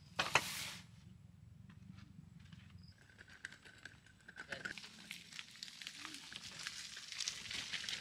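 A sharp clatter as gear is set into a Mountainhiker collapsible camp wagon, then the loaded wagon rolling over dirt ground, its wheels crunching and the load rattling in a dense run of small clicks that grows louder toward the end.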